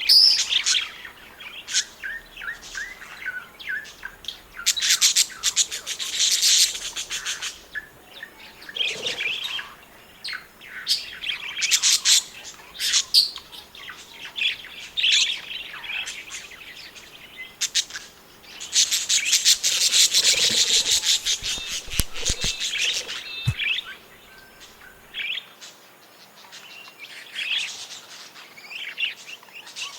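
Budgerigars chirping and warbling, short high calls throughout, with two longer spells of fast chattering about five and nineteen seconds in.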